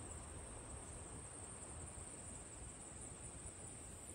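Insects trilling outdoors in a faint, steady, high-pitched drone that never breaks, over low background noise.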